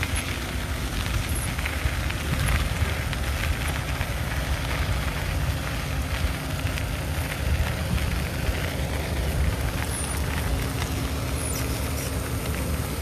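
Wind buffeting a phone microphone during a bicycle ride on a dirt track: a steady, uneven low rumble, with a light crackle and rattle from the tyres and bike over the gravel.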